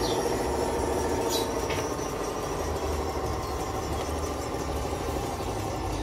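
Model Cat D11 bulldozer running as it drives off on its tracks: a steady mechanical hum with an uneven low pulsing underneath.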